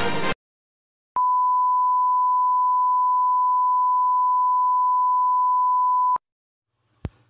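Music cuts off abruptly, and after a second of silence a single steady electronic beep, a test tone, sounds for about five seconds and stops dead, signalling that the camera has failed mid-take. A short sharp click follows near the end.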